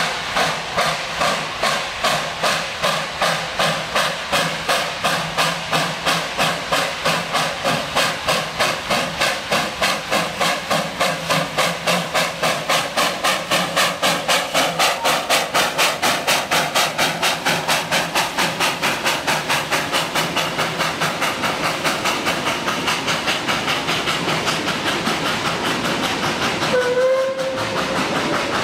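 Narrow-gauge 2-6-2T steam locomotive 12A working hard up a steep 1 in 30 grade after restarting from a stall on slippery rails: loud, even exhaust chuffs about two a second, slowly quickening. After about 20 s the beats blend into a steady hiss as the train passes, and a short whistle sounds near the end.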